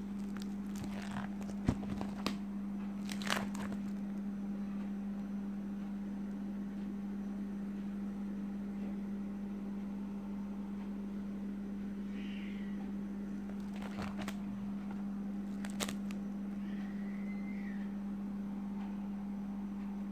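Plastic coin-album sleeves crinkling and crackling as a binder page is handled and turned, with a cluster of short clicks in the first few seconds and a couple more later. A steady low hum lies underneath.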